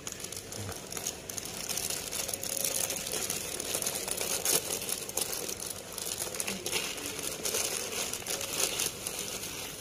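Clear plastic bag of dry cat kibble crinkling steadily as it is gripped and tipped over a feeding bowl, with many small irregular crackles.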